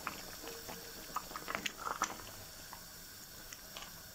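Wooden spoon stirring a pot of simmering leafy soup: soft, scattered clicks and squelches, busiest in the first half and thinning out after.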